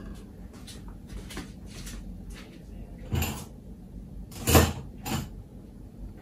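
Light knocks and bumps of things being handled while a pair of scissors is fetched, with two louder thumps about three and four and a half seconds in.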